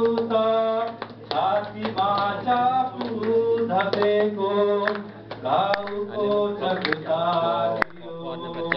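A man singing unaccompanied, with long held notes.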